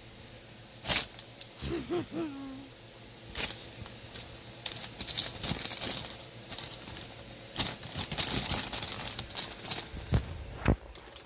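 Paper grocery bag crinkling and rustling in irregular bursts as a cat paws at it and a hand moves it, with two sharp crackles near the end.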